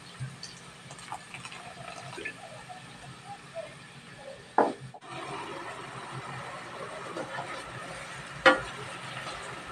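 Sprite poured from a bottle into a frying pan of chicken adobo, the soda splashing and fizzing into the sauce, followed by a sharp knock just after halfway. Then a steady hiss from the pan, and near the end a spatula knocks against the pan as the chicken is stirred.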